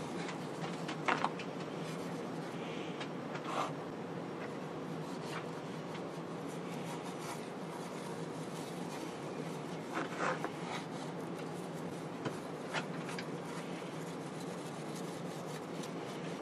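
A bare hand rubbing hand-cleaner paste over the old finish of a mahogany veneer cabinet panel: a steady soft swishing of skin and paste on wood, with a few faint light taps, as the paste is worked in to lift grime from the finish.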